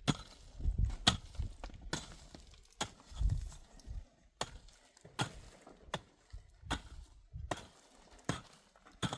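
Repeated sharp chopping strikes, about one every 0.8 seconds and evenly paced, with a few duller thumps between them.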